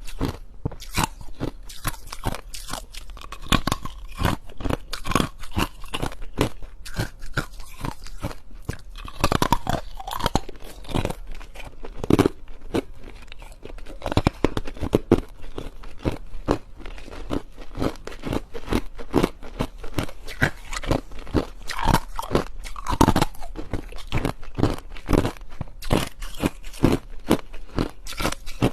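A person chewing ice close to the microphone: rapid, irregular crisp crunches, one after another with no real pause.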